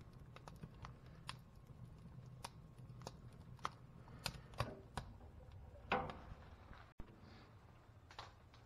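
Split wood burning in an open wood stove firebox, crackling with irregular sharp pops and snaps over a low steady hum, with one louder crack about six seconds in.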